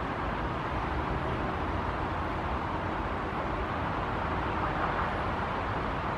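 Steady hiss and rumble of distant city traffic, with no separate sounds standing out.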